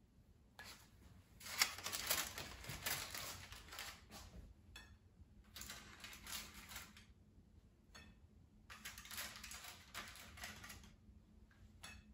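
Aluminum foil crinkling and rustling in three spells, with a metal spatula scraping over it as burgers are slid off the foil.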